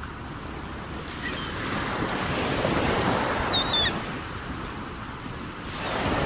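Ocean surf sound effect: a wave swells and washes out, and a second one builds near the end. A few brief high chirps sound about halfway through.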